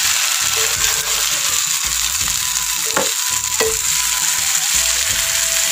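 Thick coconut curry sizzling in a non-stick pan as a spatula stirs and scrapes through it, with a couple of sharper scrapes about three seconds in.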